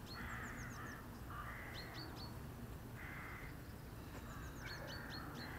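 Crows cawing repeatedly, about four rough calls of roughly half a second each, with small birds giving short, high, falling chirps in between.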